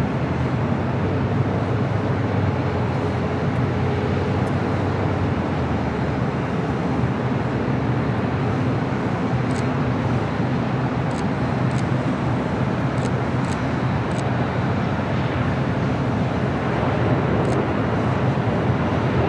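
Steady rumble of airport and road traffic noise, with distant jet engines running under a low, even hum; no single sound stands out and nothing rises or falls.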